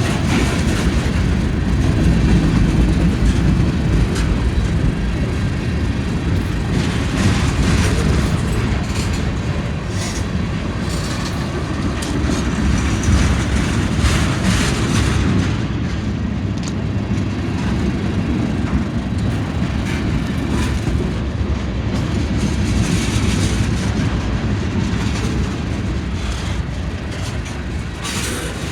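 Train rolling past: a steady, loud rumble of railcars with wheels clattering over the rails.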